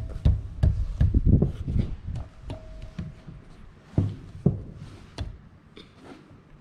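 Irregular clicks and knocks of metal parts and tools being handled while a main bearing shell is worked into place in a Caterpillar 3412 engine block. There is a cluster of duller thumps about a second in.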